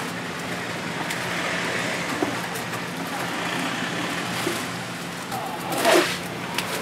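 Steady background noise with a low steady hum and a few faint clicks, rising to a brief louder whoosh about six seconds in, like traffic passing a street stall.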